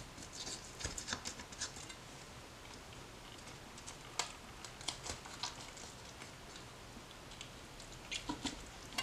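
Faint crackling and clicking as a knife cuts into the crisp skin of a whole smoked duck and the leg is worked loose by hand, in three short scattered clusters.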